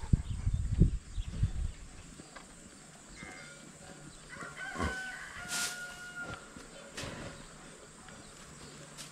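A rooster crowing once, a held call about five seconds in, with low bumps and rumbles in the first couple of seconds.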